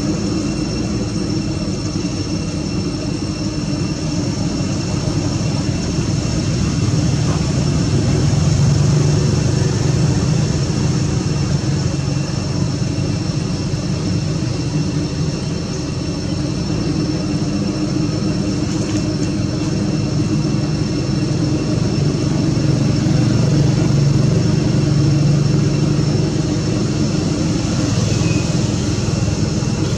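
Steady outdoor background noise: a low drone that swells twice, about eight seconds in and again past twenty, under a few steady high-pitched tones.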